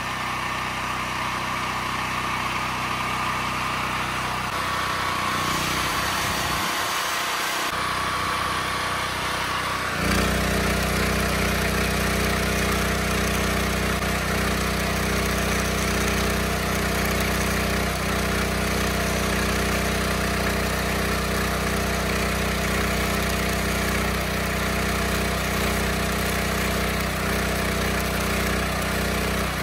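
DuroStar DS4000WGE generator-welder engine running steadily. From about ten seconds in, a stick-welding arc crackles and sizzles continuously over the engine, which runs heavier under the welding load.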